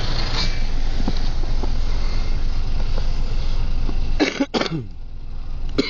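Car engine and road rumble heard from inside the cabin, steady and low. About four seconds in the rumble drops away and two sharp cough-like bursts follow in quick succession.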